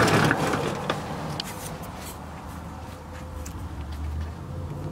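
Hand fumbling at the radiator drain plug under the car: a brief rustling scrape, then a few small clicks and taps over a low steady rumble that grows toward the end.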